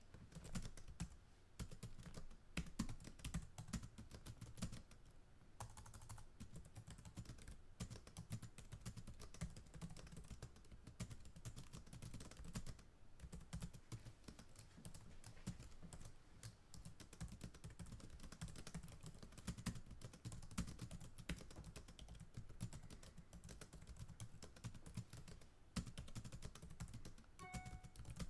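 Computer keyboard typing: a dense, steady run of key clicks from an added background track, cutting in suddenly at the start. A brief pitched tone sounds near the end.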